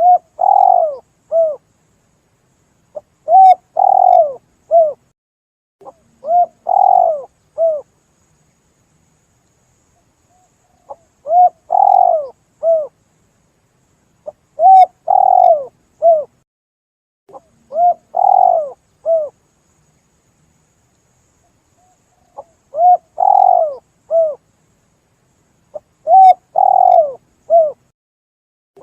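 Spotted dove (tekukur) cooing: a repeated phrase of a short note, a longer louder coo and a short closing coo. The phrases come about every three seconds in sets of three, with longer pauses between the sets.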